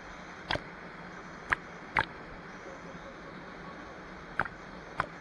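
Small waterfall and stream rushing steadily, with five sharp clicks or knocks at uneven intervals over it.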